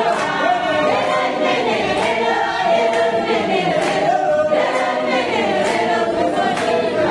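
A group of voices singing together in harmony, with a sharp beat about once a second.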